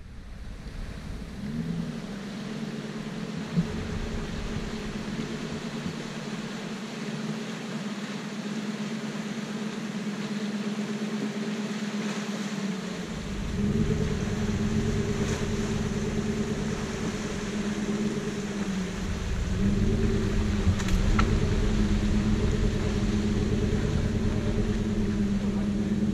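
Off-road SUV's engine running at steady low revs as it wades across a shallow river, growing louder about halfway through and again about three quarters of the way in.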